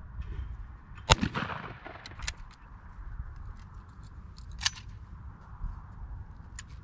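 A single shotgun shot about a second in, a sharp crack with a short trailing echo, over a steady low rumble. A few much fainter sharp cracks follow.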